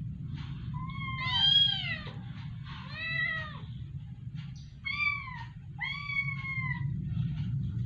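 Cat meowing four times, each meow a drawn-out call that rises and falls in pitch, over a steady low hum.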